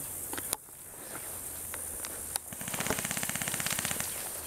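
An airsoft electric gun firing one full-auto burst of rapid, evenly spaced shots, lasting about a second and a half and starting about two and a half seconds in. A few single clicks and knocks come before it.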